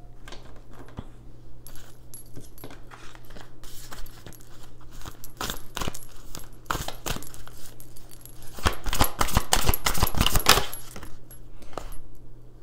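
Tarot deck being shuffled by hand: scattered card clicks at first, then a fast run of louder snapping clicks near the end.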